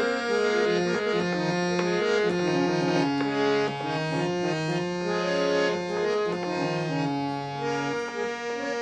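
Instrumental interlude of a ghazal: a reed-organ melody of held notes changing every half second or so, over a moving bass line.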